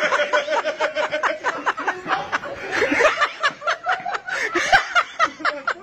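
People laughing hard, in quick repeated bursts.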